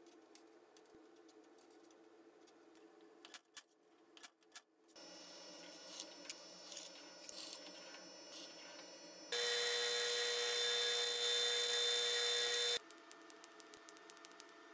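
A milling machine's drill running and cutting into a metal plate, with a loud steady whine for about three and a half seconds that cuts off suddenly. Around it a quieter machine hum with light clicks and a few knocks.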